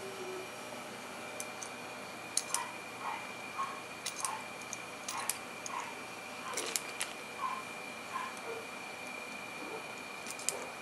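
Guillotine-style dog nail clipper snipping a young puppy's claws: a series of sharp clicks, often in quick pairs, with short faint squeaks between the snips.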